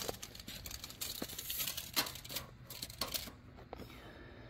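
Steel tape measure rattling and clicking as its metal blade is pulled out and set against the tyre, a quick irregular run of light metallic clicks that dies down after about three seconds.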